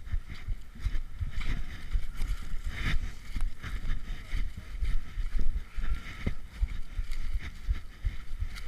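Uneven low rumbling and thumping of wind and handling noise on a body-worn action camera, with a faint steady high-pitched drone behind it.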